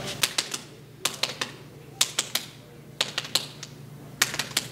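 Hands slapping, fists hitting open palms as two players pump out a game of rock, paper, scissors: clusters of three or four sharp slaps, about once a second, five times over.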